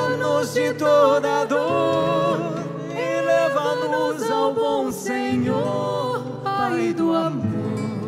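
Men and women singing a Marian devotional hymn together, accompanied by acoustic guitar.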